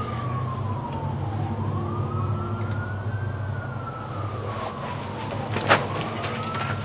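A siren wailing, its pitch rising and falling slowly, each rise and fall taking about four seconds, over a steady low hum. A single sharp click comes a little before the end.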